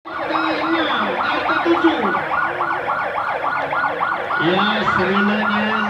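Electronic siren sounding a fast yelp: a rapid, even run of rising-and-falling wails, about four to five a second.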